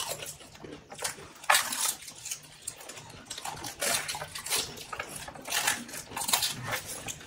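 People eating panipuri: irregular crunching of the crisp puri shells and slurping of the spiced water, in short bursts every second or so.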